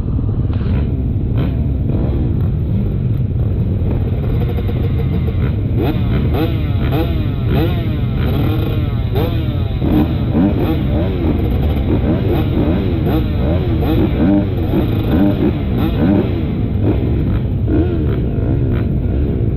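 Motocross bikes racing, engines revving hard with the pitch rising and falling quickly as they shift and throttle on and off, over a constant low rumble heard from a rider's helmet camera.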